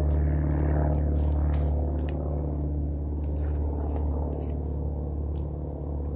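Airplane flying overhead: a steady low drone with a hum of several tones, easing off slowly.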